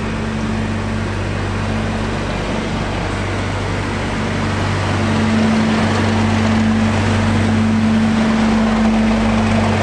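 Class 37 diesel locomotive's English Electric V12 engine working under power as it pushes a train away, a steady low drone that grows louder about halfway through.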